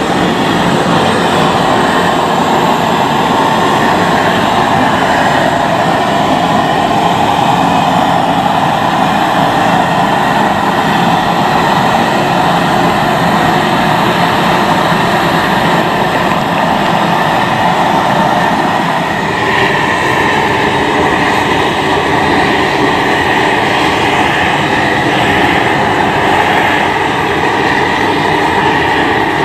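Gas torches burning with a steady, loud rush while they heat a copper boiler for silver soldering. A higher hiss joins in about two-thirds of the way through.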